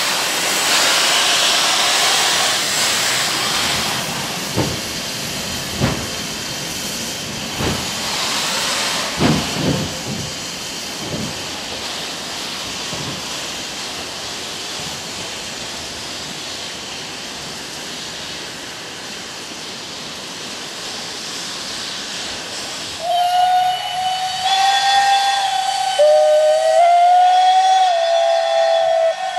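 Furka HG 3/4 steam locomotives hissing steam, with a few slow, irregular exhaust chuffs in the first ten seconds. In the last few seconds a steam whistle blows long and steady, dipping in pitch once partway through.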